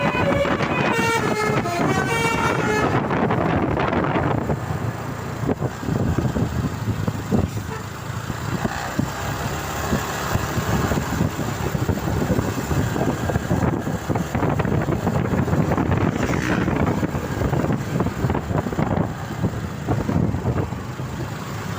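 Basuri 'telolet' multi-trumpet bus horn playing a stepping melody of several notes at once, stopping about three seconds in. The bus's running engine and road noise follow, loud and rough.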